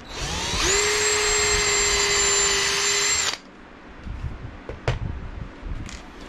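Bauer 20V cordless drill drilling a pilot hole through a brass hinge into plywood: the motor spins up quickly to a steady high whine for about three seconds, then stops abruptly. A couple of short knocks follow about a second and a half later.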